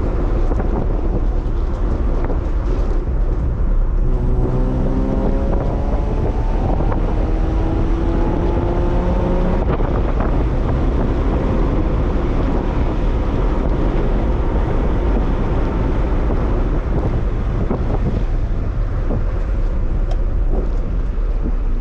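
1997 Toyota 4Runner driving, with a steady engine and road rumble and wind on the microphone. About four seconds in the engine note climbs slowly as the truck speeds up, then holds steady.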